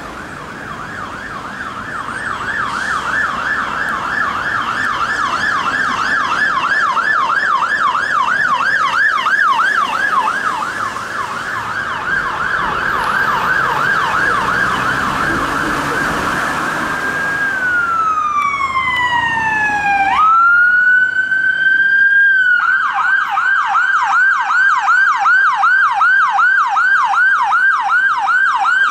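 Electronic emergency-vehicle sirens on a fast yelp, rising and falling about three times a second. The first siren holds briefly and then glides slowly down. After a sudden change about two-thirds of the way through, a Mercedes-Benz ambulance's siren rises into a short steady tone, then goes back to the fast yelp.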